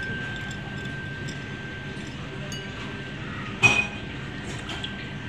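A single sharp clink of ceramic crockery, a plate or bowl knocked, about three and a half seconds in, ringing briefly. Faint small clicks of handling and a steady background hum run under it.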